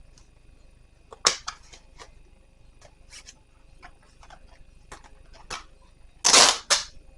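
Items and packaging being handled during an unboxing: scattered light clicks and taps, a sharp knock just over a second in, and a brief loud rustle about six seconds in.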